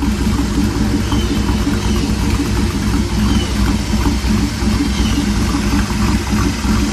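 2007 Ford Taurus SE's 3.0-litre V6 idling steadily after a cold start, with no hiss of a vacuum leak, which the owner finds all good.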